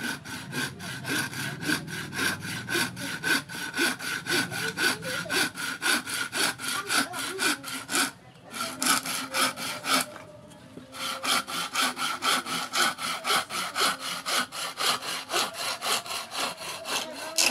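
Homemade hand saw, its blade cut from an old sawmill saw blade, cutting through a hard-wood branch with fast back-and-forth strokes, about three a second. The strokes break off briefly about eight seconds in and again around ten seconds.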